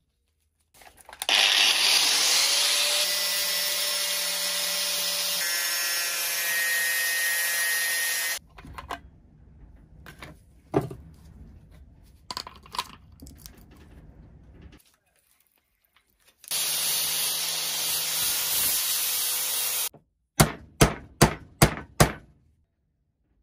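Angle grinder with a flap disc running and grinding on steel in two spells, the first about seven seconds long and the second about three and a half, with scattered handling clicks between them. Near the end come five sharp hammer blows on a pin punch in quick succession.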